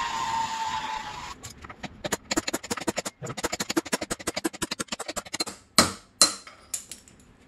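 Handheld gas torch burning with a steady hiss and a thin whine, heating the swing-arm pivot bore to free stuck bearings; it cuts off about a second and a half in. Then rapid clicking and rattling for about four seconds, and two sharp knocks about six seconds in.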